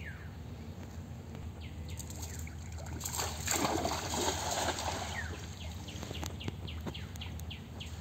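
A cast net swishes out and lands on the pond surface with a splash, loudest about three and a half to four and a half seconds in. Birds chirp in short, falling notes throughout.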